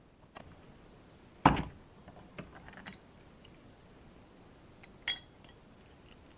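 Steel bench vise being loosened and the improvised bush-pressing tools, a copper pipe tee and a socket, being taken out of its jaws. A dull metal knock comes about a second and a half in, then a few lighter clicks, and a short ringing metallic clink about five seconds in.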